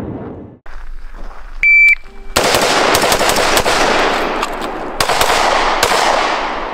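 A short high electronic beep, then a rapid string of semi-automatic pistol shots, about a dozen in three to four seconds, their echoes running together between the shots.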